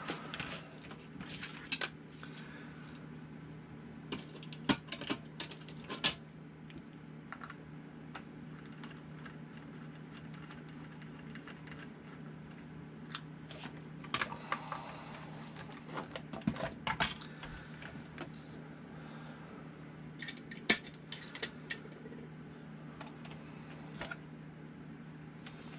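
Scattered clicks and clinks of a metal nut driver and small RC car parts being handled on a workbench, coming in short clusters over a steady low hum.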